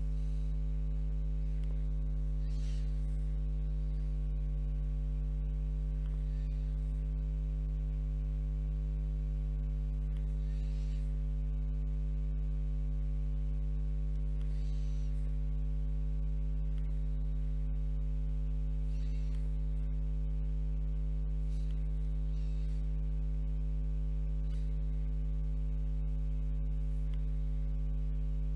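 Steady low electrical mains hum with a stack of overtones, unchanging throughout, with a few faint soft swishes now and then.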